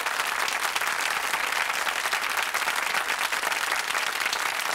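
Studio audience applauding steadily, many hands clapping at once.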